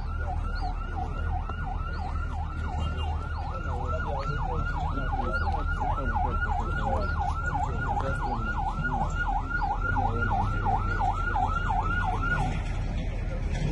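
An emergency vehicle's siren sounding in a fast yelp, rising and falling about three times a second over a steady low rumble, and cutting off near the end.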